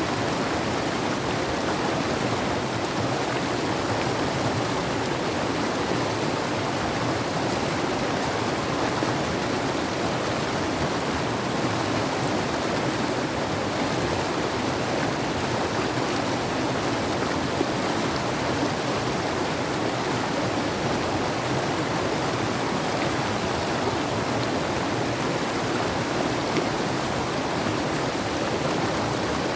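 Fast mountain river rushing steadily over rocks, a constant, even sound of flowing water.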